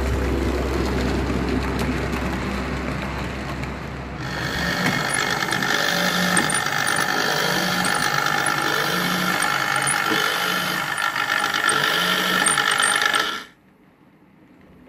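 Model railway turntable drive running, a geared whine with a soft knock about once a second. It cuts off suddenly about a second before the end as the bridge stops. It is preceded by about four seconds of steady mechanical rumble and hum.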